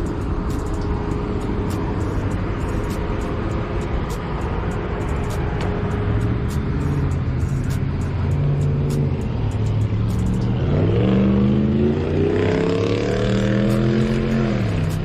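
Car engine running at a low, uneven rumble, then revved: about ten and a half seconds in its pitch climbs steadily for three to four seconds, then drops back off near the end.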